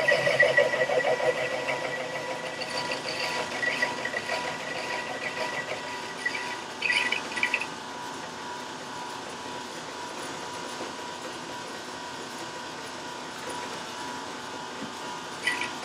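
1941 South Bend 13-inch lathe running with its cutting tool taking the final-depth cut across the shoulder of a hard steel sawmill guide roller. The rough cutting noise is loudest at first and fades after about five seconds, leaving the lathe's steady running hum and whine.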